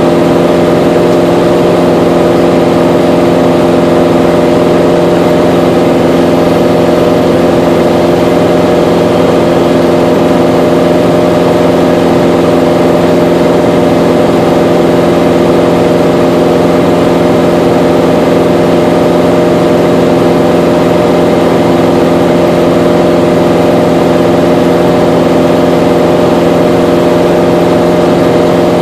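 Mooney M20J's four-cylinder Lycoming IO-360 engine and propeller droning steadily in cruise flight, heard from inside the cabin.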